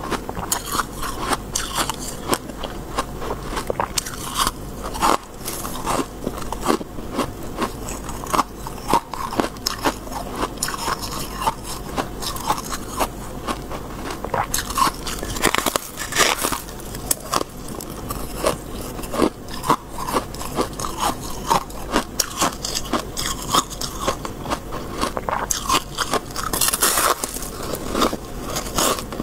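Freezer frost (powdery white ice) being bitten and chewed close to a lapel microphone: a dense run of irregular crunches and crackles, with a few louder crunches.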